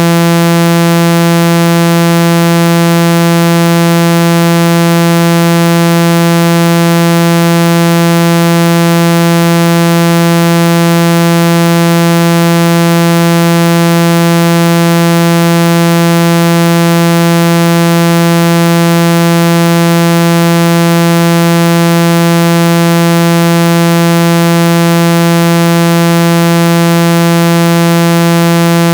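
Speaker-cleaning tone for an iPhone speaker: a loud, steady, low buzzy tone with a hiss above it, meant to vibrate the speaker mesh and shake out trapped water and dust.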